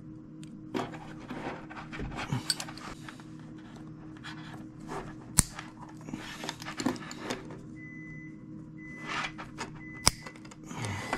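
Handling noise of braided steel control cable and hand tools on a wooden workbench: irregular rustling and scraping with small clicks, and two sharper clicks, one about halfway and one near the end. A faint steady hum runs underneath.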